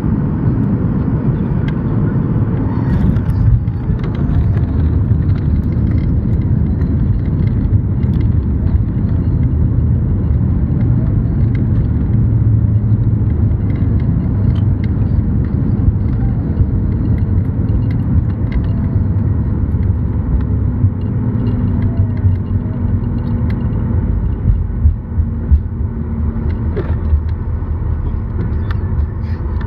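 Cabin noise of a Boeing 737-8 MAX rolling on the ground after touchdown: a steady low rumble of its CFM LEAP-1B engines and the wheels on the tarmac. A few light knocks and rattles come near the end.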